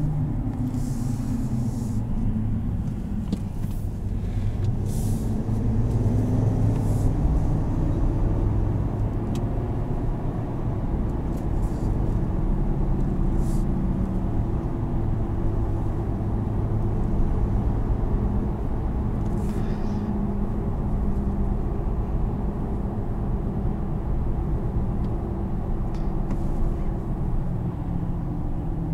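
Engine and road noise inside the cab of a 2020 Chevrolet Silverado 1500 Z71 pickup on the highway: a steady low rumble. The engine note dips and then climbs again a few seconds in, and a few short hisses come and go.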